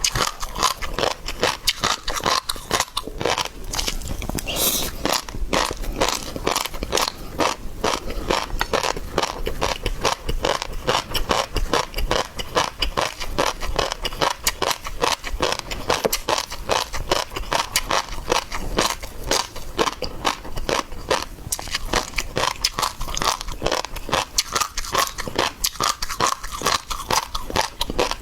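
Close-miked chewing of seafood: a continuous run of quick crunches, crackles and wet biting sounds, many each second.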